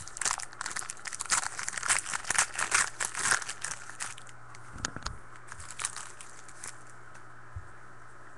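Trading-card pack wrapper crinkling and tearing as it is torn open by hand: dense crackling for about four seconds, then a few scattered crinkles that die away.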